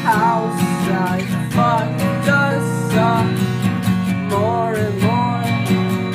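Music: a strummed, guitar-like part and a melody that glides up and down in pitch, over a steady beat.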